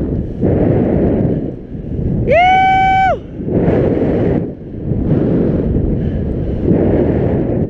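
Wind rushing over the microphone and skis slicing through deep powder snow, the noise swelling and dipping with each telemark turn. About two seconds in, one loud, high whoop is held for under a second.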